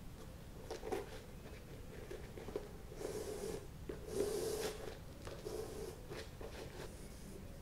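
A flat shoelace being threaded and pulled through the eyelets of a Nike Dunk High sneaker: soft rustling and scraping, with two longer pulls of the lace about three and four seconds in.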